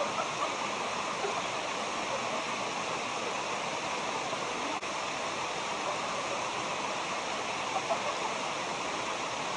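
Steady rushing of a waterfall, water pouring without a break.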